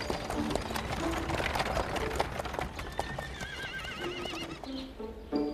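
Horse hooves clip-clopping as a horse-drawn carriage goes along a paved street, with a horse whinnying once about three seconds in, over light background music.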